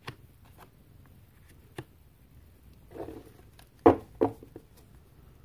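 Oracle cards being handled and laid on a table: a few light clicks and a short rustle, then two sharper knocks of cards set down about four seconds in.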